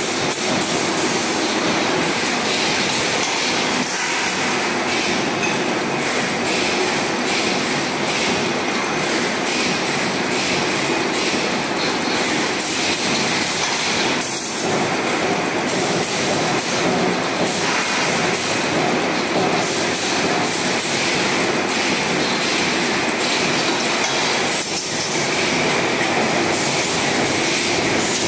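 2D CNC wire bending machine running, feeding and bending steel wire, with a loud, steady mechanical clatter and many small clicks throughout.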